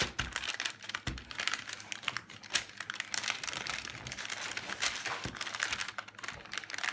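Parchment paper crinkling and crackling under a wooden rolling pin as it is rolled back and forth over a sheet of chilled, stiff shortcrust pastry, in a steady run of irregular crackles.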